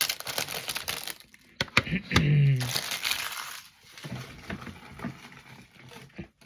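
Plastic and paper packaging crinkling and being torn open by hand, with a few sharp clicks and crackles about a second and a half in.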